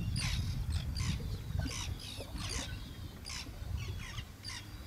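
Birds chirping: quick, short, high chirps repeating every half second or so, over a steady low rumble.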